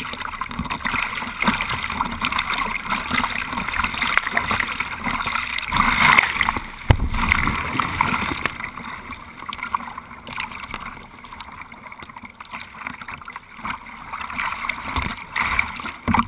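Water rushing and splashing around a surf kayak as it is paddled through breaking surf, with spray hitting near the camera. The rush swells about six seconds in, and a single sharp knock comes about a second later.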